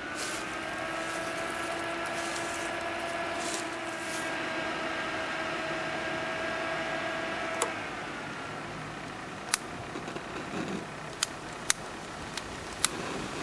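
Mosquito Magnet Patriot Plus powering up: its fan motor spins up and runs with a steady hum. About eight seconds in there is a click and the hum drops away, and a handful of sharp clicks follow near the end.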